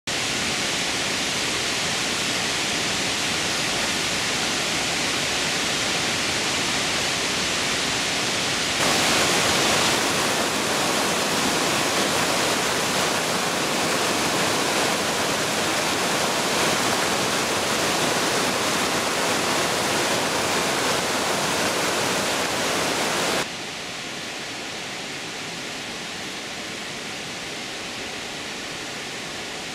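Steady rushing of water from a rocky mountain stream tumbling over boulders in small cascades. It cuts to a louder rush about nine seconds in and to a softer one about twenty-three seconds in.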